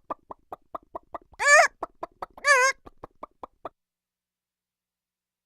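Cartoon chicken sound effect: a quick run of short clucks, about four a second, broken by two loud, warbling squawks about a second apart. It stops abruptly a little past halfway.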